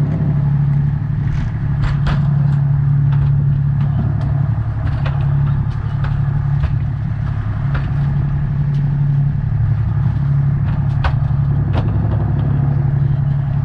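Sportfishing boat's engine running steadily with a low drone, with scattered sharp knocks and clicks over it.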